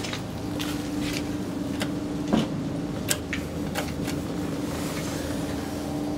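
A steady low hum with scattered sharp clicks and taps; the loudest is a single knock about two and a half seconds in. An elevator's landing call button is pressed among them.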